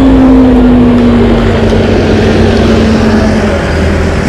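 E-bike riding with wind rushing over the microphone and road noise, under a steady whine from its electric hub motor that drifts slowly down in pitch as the bike slows.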